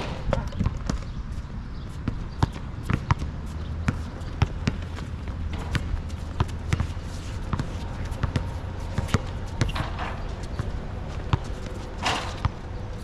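Basketball bouncing on an asphalt court, a string of sharp, irregularly spaced thuds over a steady low rumble.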